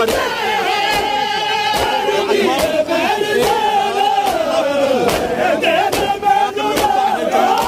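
A large crowd of men chanting a Punjabi noha together, with loud, evenly spaced chest-beating strokes (matam) a little more than once a second.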